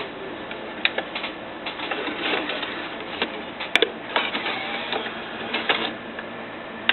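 Numark MixDeck CD drive mechanism loading, spinning and ejecting discs: a mechanical whirring with scattered clicks, one sharp click near the middle. No grinding from the platter is heard; the mechanism sounds the same on each deck.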